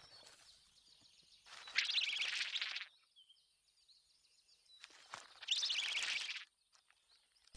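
Small bird-like creature singing: two rapid trilled phrases, each about a second long, a few seconds apart.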